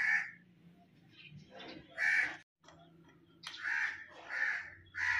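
A bird calling about five times, short calls with pauses between them.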